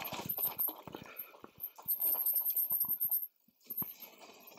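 Mountain bike rolling down a rough trail: a string of knocks and rattles from the bike over the ground, with a run of fast high-pitched ticking for about a second in the middle that cuts off sharply into a brief lull.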